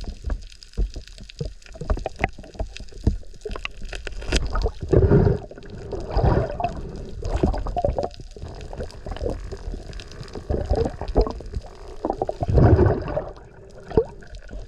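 Water sloshing and gurgling around a swimmer, with irregular ticks and two louder surges, about five seconds in and again near the end.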